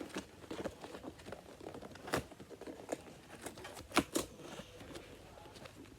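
Cardboard box and packaging being handled and opened: scattered crinkling, tearing and sharp clicks, the loudest clicks about two and four seconds in.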